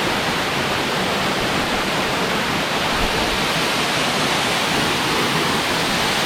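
Waterfall rushing in a steady, even roar of falling water close to the microphone.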